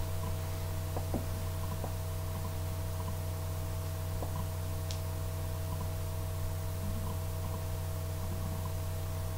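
Steady electrical hum with a few faint, scattered clicks.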